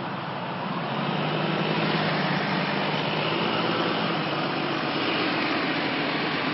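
Tiller ladder fire truck's engine running close by: a steady, heavy vehicle rumble with road noise, getting louder about a second in.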